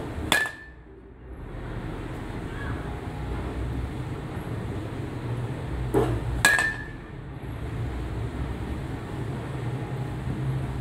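A bat hitting pitched balls in a batting cage, twice: at the start and again about six seconds in. Each hit is a sharp crack with a brief ringing ping, just after a duller knock. A steady low hum runs underneath.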